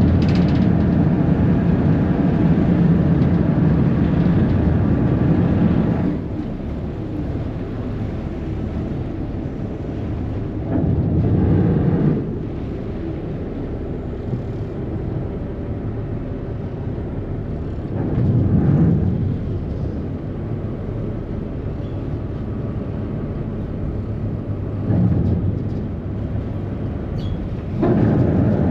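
Harbour ferry under way: a steady rumble of its engines and churning wake, overlaid by wind buffeting the microphone in gusts. The gusts are strongest for the first six seconds, then come in shorter surges every six or seven seconds.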